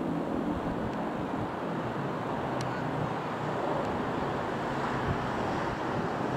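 Dassault Falcon 20 business jet flying overhead: steady jet engine noise, an even rushing sound with no distinct tones.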